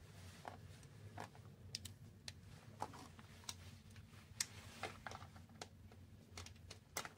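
Faint, irregular light clicks and taps of a plastic USB charger and its cable being picked up and handled.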